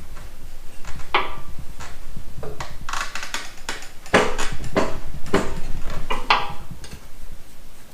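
Metal snow-plow parts clanking and knocking as they are forced into line to take the pivot pin: about eight separate strikes with a brief ring, the loudest bunched in the second half, over a steady low hum.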